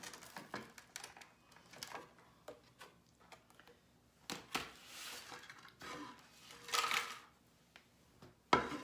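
Hard honey candies being popped out of a plastic candy mold: small clicks and clatter of brittle candy against plastic, with some pieces snapping as they break, and a few louder bursts of clatter around the middle and near the end.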